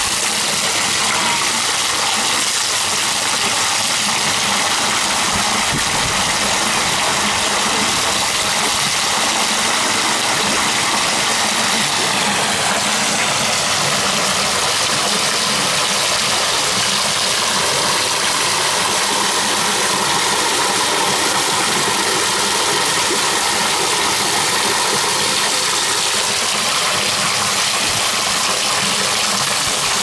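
Garden waterfall pouring from a rock into a shallow pond: a steady, unbroken rush and splash of falling water.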